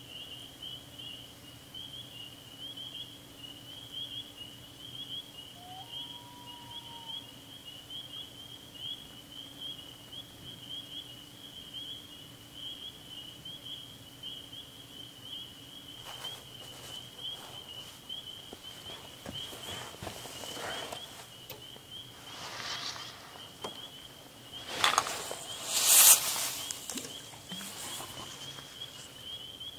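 A steady, high, pulsing chorus of distant calling frogs over the lake, with a single short whistled note about six seconds in. In the last third, scattered clicks and knocks of the camera and gear being handled build to a loud clunk a few seconds before the end.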